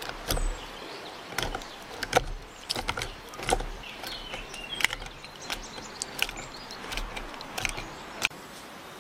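A metal tool jabbed again and again into the flesh inside a hollowed watermelon, mashing it into juice: irregular wet knocks and clicks, about one or two a second, stopping abruptly near the end.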